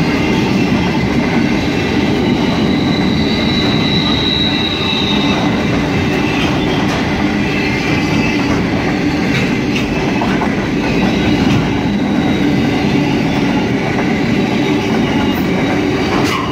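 Freight train of open metal wagons rolling past: a steady rumble of wheels on rail with a few clicks over the rail joints, and a brief high wheel squeal about three to five seconds in.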